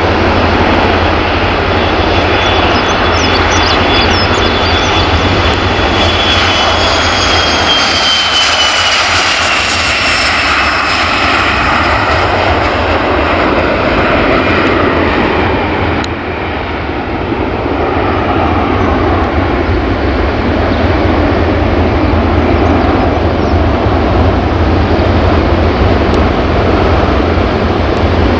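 Embraer ERJ regional jet's twin tail-mounted turbofans at take-off power as it rolls, lifts off and climbs out. A high whine slides down in pitch over the first ten seconds or so, under a loud, steady jet rumble that carries on as the aircraft climbs away.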